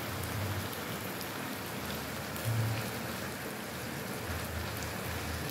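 Small shrimp sizzling in a frying pan with a steady, even hiss, stirred with a spoon, with a few faint ticks.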